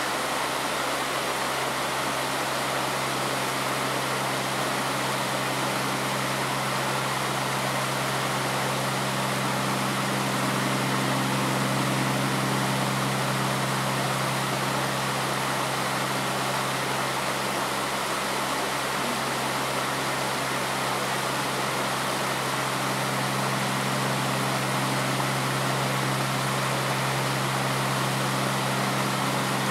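Steady rushing of shallow stream water over stones, with a low, steady hum underneath.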